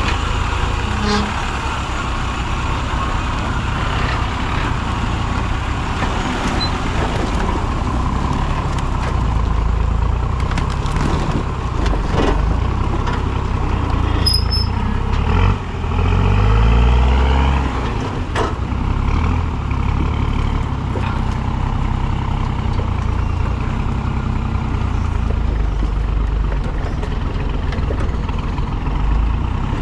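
Four-wheel-drive vehicle's engine running on an off-road track, its revs rising and falling about halfway through, with a few sharp knocks along the way.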